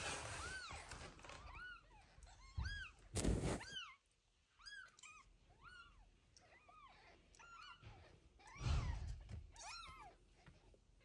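Newborn kittens mewing over and over in short, high, arching cries. Between the cries come a few louder rustling thumps of hands and fur against the felt bed, about three seconds in and again near nine seconds.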